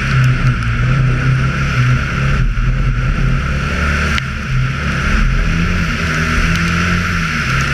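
Audi Quattro A2 Group B rally car's turbocharged five-cylinder engine driven hard, heard onboard, its pitch rising and falling with the throttle and dipping briefly twice. A steady hiss runs under it.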